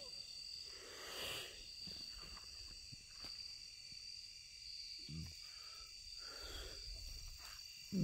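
Night insects trilling steadily at a high pitch, with a soft rustle about a second in and a short low murmur about five seconds in.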